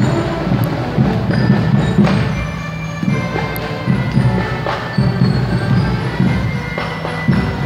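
Parade band music: short ringing bell-like notes over a pulsing drum beat.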